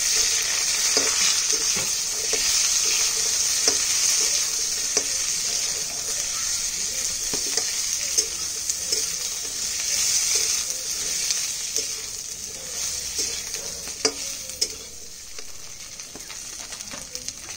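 Potato, bitter gourd, brinjal and drumstick pieces sizzling as they fry in hot oil in a kadai while being stirred, with scattered knocks and scrapes of the stirring utensil against the pan. The sizzle dies down over the last few seconds.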